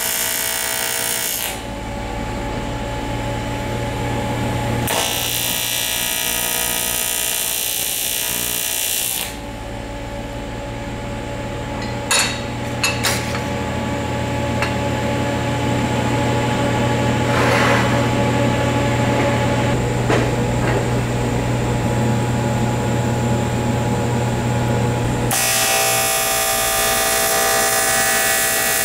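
TIG welding arc on aluminum buzzing harshly in three stretches: briefly at the start, for about four seconds a little later, and again in the last few seconds. Between the welds there is a steady low hum, with a few sharp clicks near the middle.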